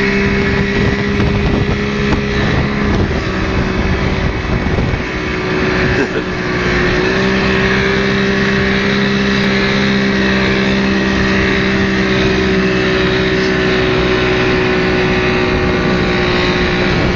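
Speedboat outboard motor running steadily at speed, towing a rider, with the rush of wind and water over it. The level dips briefly about five to six seconds in, then the engine settles back to the same steady note.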